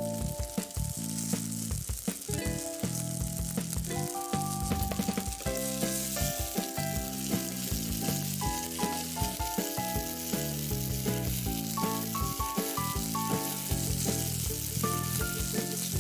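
Marinated Indian mackerel (ayala) frying in shallow oil in a non-stick pan, sizzling steadily, with a spatula moving the fish. Background music plays over it.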